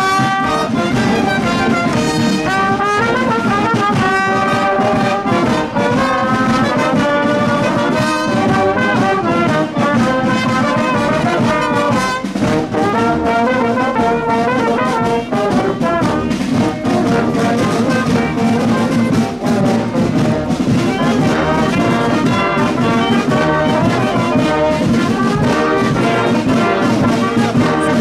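Carnival brass band playing a lively tune without a break, the brass carrying the melody over a steady beat.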